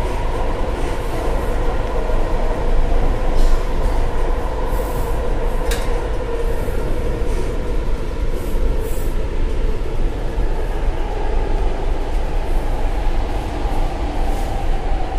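Metro train running, heard from inside the carriage: a steady rumble with a constant whine over it, and one brief sharp sound about six seconds in.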